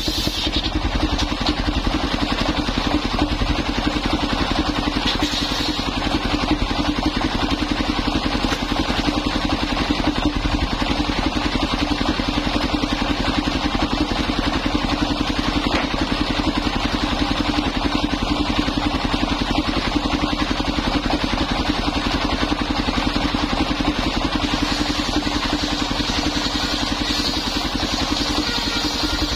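Engine-driven mobile circular sawmill running steadily, its big circular blade ripping old coconut timber into planks and beams.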